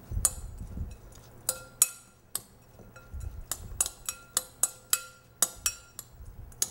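Metal fork clinking against the sides of a glass mixing bowl while stirring a chopped salad: quick, irregular taps, each with a brief ring from the glass, with a couple of dull low knocks near the start and about halfway.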